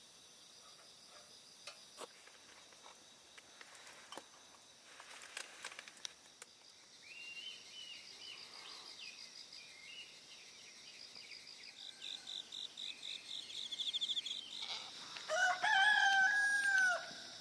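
Small birds chirping and trilling at dawn, then a rooster crows once, a long held call, about two seconds before the end.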